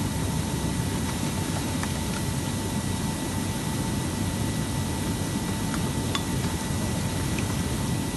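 A steady mechanical running noise: a low rumble under an even hiss, with a faint high steady tone and a few faint clicks.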